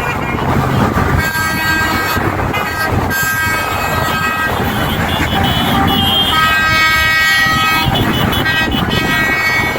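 Vehicle horns honking over passing road traffic, several long honks one after another.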